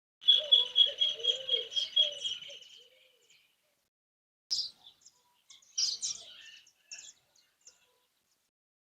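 Songbirds singing at dawn: a quick run of repeated high chirps, about four a second, for the first three seconds, then a few short separate calls.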